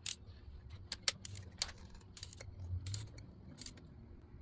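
A torque wrench clicking and ratcheting while a spark plug is tightened to 23 lb-ft: a series of sharp, irregular metallic clicks.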